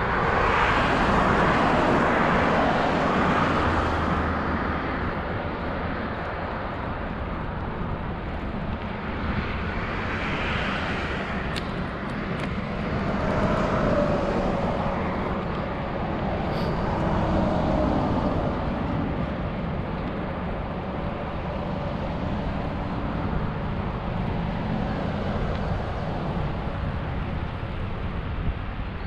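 Wind and road noise from riding a bicycle with an action camera, a steady rumble, with motor vehicle noise swelling and fading several times.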